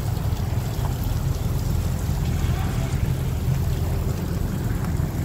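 Steady low rumble of boat engines running in a harbour, mixed with wind buffeting the phone microphone.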